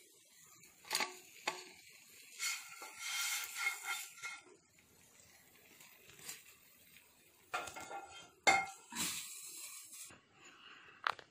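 A utensil and fried fish clinking, knocking and scraping against a serving plate as the fish are laid out on it: a string of separate knocks and short scrapes, the sharpest about eight and a half seconds in.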